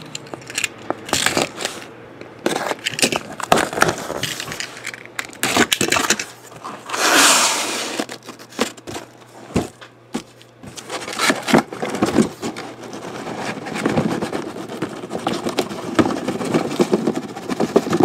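Packing tape on a cardboard shipping case being slit and torn open, with cardboard scraping, rustling and knocking as the flaps are handled. A longer tearing rip comes about seven seconds in.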